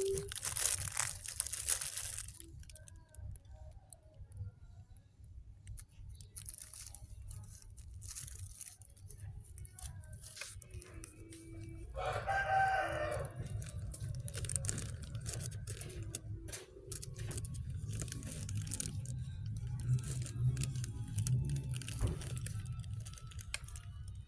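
A rooster crowing once, about twelve seconds in, over scattered rustling and handling noise as the kittens are stroked on plastic bags.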